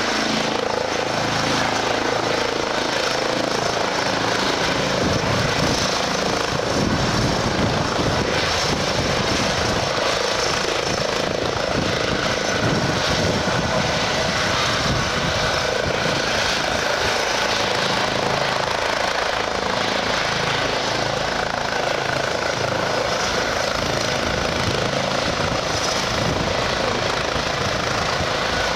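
Air ambulance helicopter with a shrouded fenestron tail rotor, held at a hover close by while balanced on a roadside guard rail. It gives a steady, unchanging rush of rotor and turbine noise with a faint high whine.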